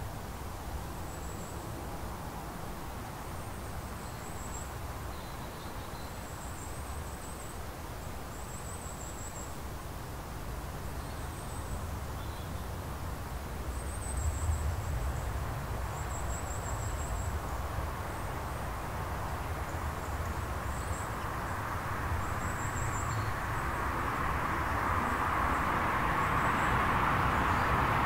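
Outdoor mountainside ambience: a steady low rumble with short, thin, high-pitched bird chirps repeating every second or two. A rushing noise swells steadily louder over the last ten seconds.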